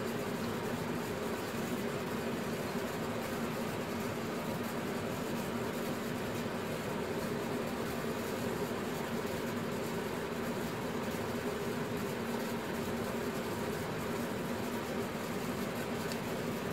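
Steady, unchanging mechanical hum with a constant hiss, like a fan or similar machine running.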